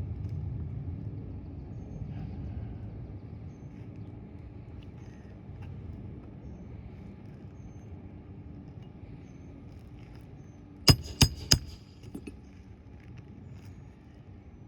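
Three quick, sharp knocks about a third of a second apart, from roofing work on asphalt shingles, over a low, steady background rumble.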